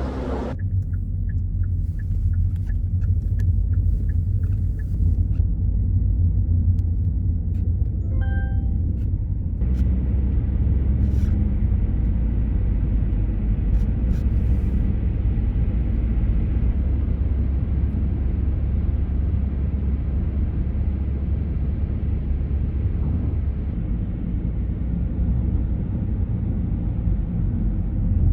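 Car running on the road, heard as a steady low rumble of engine and tyre noise. A regular ticking, about three ticks a second, runs for the first few seconds, and a short chime-like tone sounds about eight seconds in.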